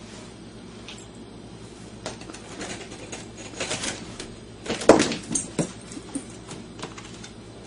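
Scattered light scuffs and taps of a dog tugging a long loaf of bread across a vinyl kitchen floor, busier in the second half, with the loudest knock about five seconds in.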